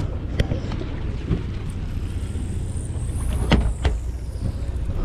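Steady low rumble of the sportfishing boat's engine running, with a few sharp clicks and knocks from a conventional fishing reel and gear being handled. The loudest click comes about three and a half seconds in.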